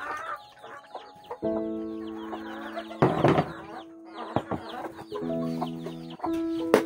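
Chickens peeping and clucking in quick, repeated chirps over background music of long held notes. A short burst of noise comes about three seconds in, and a sharp knock near the end.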